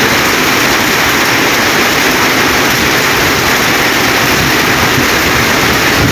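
Storm water rushing in a steady, loud, unbroken stream.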